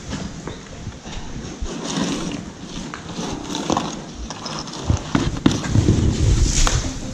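Footsteps on a debris-strewn concrete floor: irregular crunching knocks and scrapes of boots on rubble. A low rumble joins about five seconds in.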